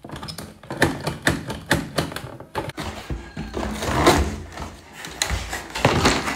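Handling of a boxed plastic dinosaur toy and its cardboard packaging: an irregular run of clicks, taps and knocks, with cardboard and plastic rustling as the box is turned over and lifted.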